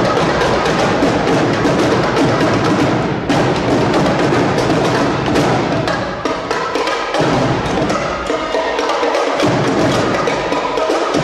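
A marching drumline playing a fast, loud cadence of rapid drum strikes. The low drums drop out briefly twice in the second half.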